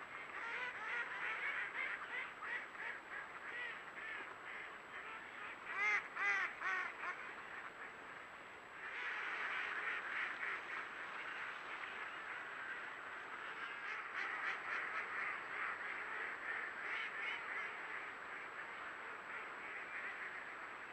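A large flock of ducks calling together in a continuous chatter of quacks. A louder cluster of quacks comes about six seconds in, and after a brief lull a little before nine seconds the calling thickens again.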